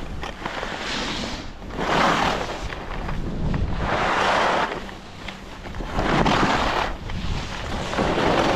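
Skis carving turns on artificial snow: a scraping hiss swells with each turn, about every two seconds, over wind buffeting the microphone.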